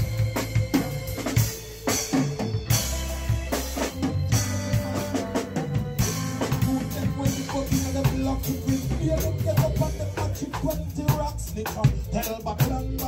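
A live band playing an instrumental passage, with the drum kit's kick, snare and rimshots to the fore in a steady beat over low held bass notes and higher keyboard notes.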